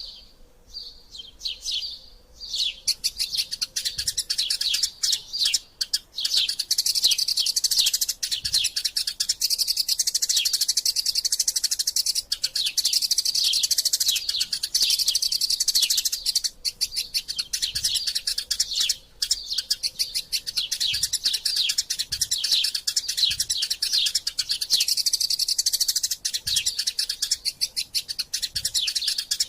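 Eurasian tree sparrows chirping, sparse at first, then from about three seconds in a rapid, nearly unbroken stream of high chirps: the excited chatter of sparrows squabbling.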